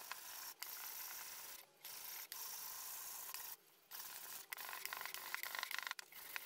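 Hand sanding with 180-grit sandpaper, rubbed back and forth over the curved surface of a 3D-printed speaker enclosure to smooth away its print layer lines. The result is a faint, continuous scratchy hiss, with two brief pauses between strokes, about two seconds in and just before four seconds.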